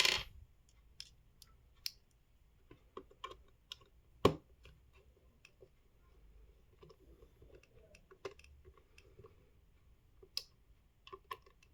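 Scattered small clicks and taps of a precision screwdriver working on the plastic shell of a wireless mouse, with a sharp knock at the start and another about four seconds in.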